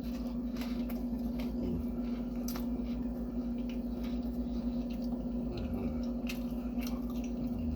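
A person biting and chewing pizza close to the microphone, with short, irregular crunches and wet mouth clicks over a steady hum.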